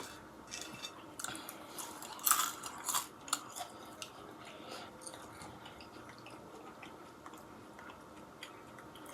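Close-miked chewing and biting of food, with several crisp crunches in the first three seconds or so, then softer chewing.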